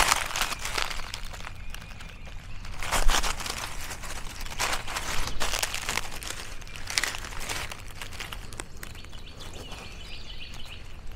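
Footsteps and rustling through dry leaves and grass: irregular crunching and crackling, loudest about three seconds in. A faint high chirp comes near the end.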